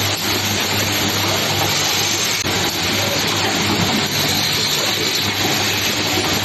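Steady din of many CNC machines running in a metal-machining workshop: a constant low hum under a loud, even hiss.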